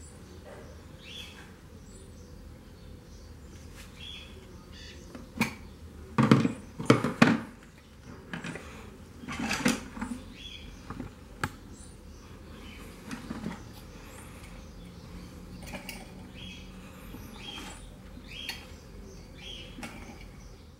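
Clicks and knocks of small metal and plastic parts being handled: a fan motor with a rotor of metal spoon blades being fitted onto a metal rod on a clear acrylic stand. The loudest knocks come in a cluster about six to seven seconds in, with another about ten seconds in.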